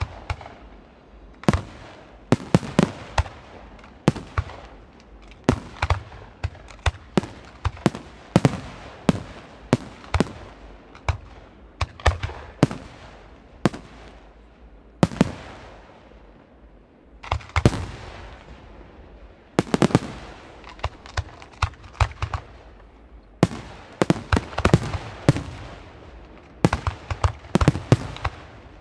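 Aerial firework shells bursting in quick, irregular succession: sharp bangs, often several close together, each with an echoing tail. The bangs come densest near the end.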